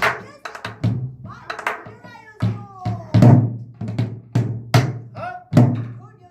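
Sori-buk, the pansori barrel drum, struck in brisk jajinmori rhythm, about a dozen sharp strokes with a heavy low thump, under a recorded pansori singer's gliding voice.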